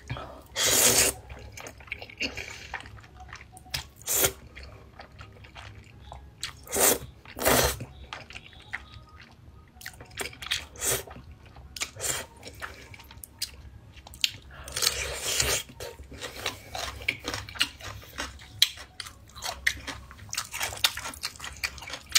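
Close-up eating sounds of spicy instant noodles: a few loud slurps of noodles, one about a second in, two close together about a third of the way through and a longer one past the middle, with wet chewing and mouth clicks in between.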